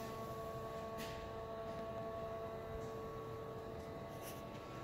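A steady hum made of several held tones over a low rumble, with a couple of faint clicks about a second in and near the end.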